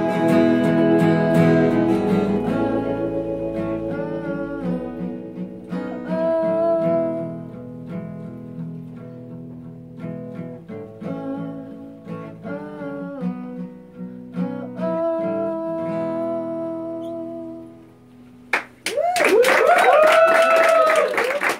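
Live acoustic guitar strumming with a woman singing. The song tapers off, and about 19 s in a small audience breaks into clapping and cheering.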